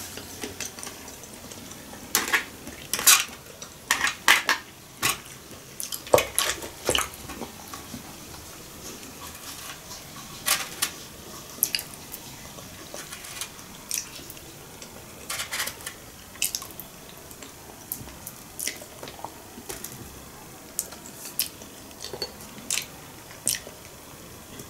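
Chopsticks clicking and tapping against a plastic takeaway sushi tray and a small sauce dish during eating, with chewing: irregular short clicks and taps scattered throughout.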